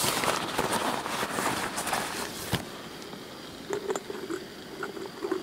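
Handling noise as the metal arms of a candelabra are fitted together: a rustling scrape for about two and a half seconds that ends in one sharp click, then a few light clicks.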